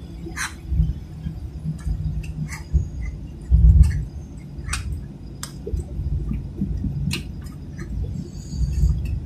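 Boeing 737-800 cabin while taxiing after landing: an uneven low rumble with scattered sharp clicks and light rattles.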